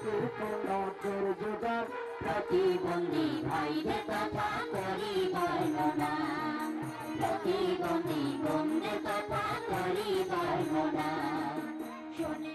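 A woman singing a folk-style song through a microphone, with instrumental accompaniment: a steady held drone and drum strokes. The music dips somewhat near the end.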